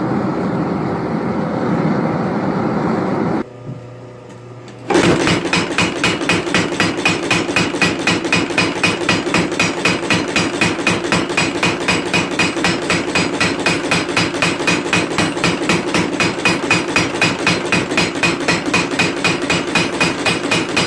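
A forge running with a steady rush, then, after a short quieter stretch, a homemade power hammer striking a hot Damascus billet at about four blows a second, drawing it out.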